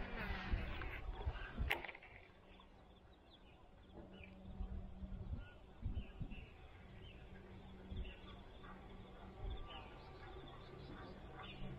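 Faint scattered bird chirps over a quiet pondside background. In the first two seconds, rod and reel handling rustles and ends in a sharp click.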